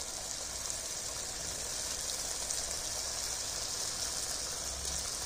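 Samosas deep-frying in hot oil in a kadhai: a steady, even sizzle of bubbling oil.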